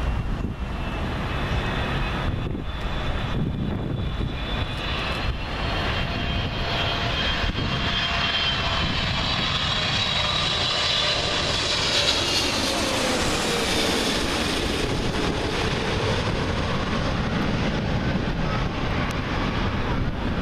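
Boeing 777-300ER's two GE90-115B turbofans on final approach, passing low overhead: a rising engine whine over a low rumble, loudest about twelve seconds in. The pitch then drops as the jet passes and moves away.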